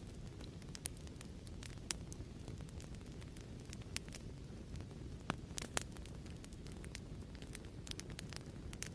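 Fireplace crackling: a steady low rumble of burning with irregular sharp pops and snaps, a few louder ones near the middle.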